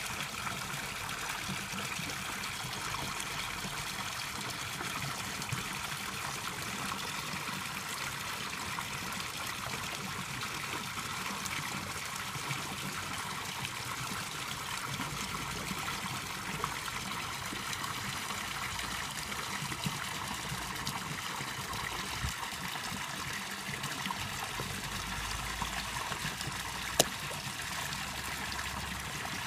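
Koi pond water trickling steadily, with a few faint ticks and one sharper click near the end.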